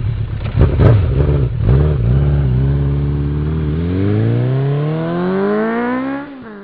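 Motorcycle engine revving in short blips, then accelerating hard with one long, steady rise in pitch that falls away just before the end.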